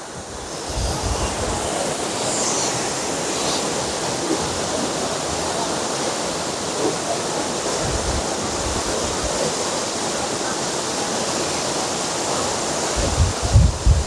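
Waterfall in strong monsoon flow crashing into its plunge pool: a steady, dense rush of falling water. Low rumbles of wind noise on the microphone come about a second in, near eight seconds, and again near the end.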